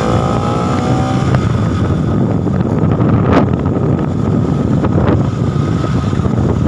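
Bajaj Pulsar NS200 single-cylinder engine pulling under way, its rising note fading within the first second and then largely buried under heavy wind noise on the microphone. Two short sharp noises come about halfway and about two-thirds through.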